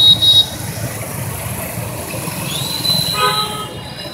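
A bus running with a steady low rumble. Brief loud high-pitched tones come at the very start, and about two-thirds in a high squeal rises and holds for about a second.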